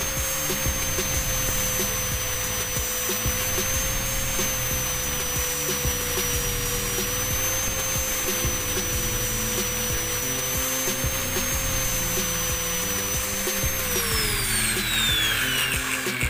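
A small high-speed electric motor tool running with a steady whine, switched off near the end so that its pitch falls away as it winds down. Background music plays underneath.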